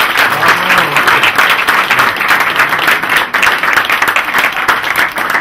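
Small roomful of people applauding, a dense, steady patter of many hands clapping with a few voices faintly mixed in.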